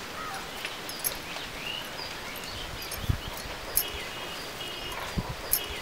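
Outdoor ambience with small birds chirping and trilling on and off over a steady background hiss. A few light clicks and soft low thumps come from hands working around the grinding stone.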